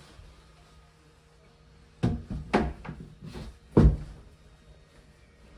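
Ceramic basin being set down and settled onto a vanity unit: a handful of knocks and clunks starting about two seconds in, the loudest a second or so later.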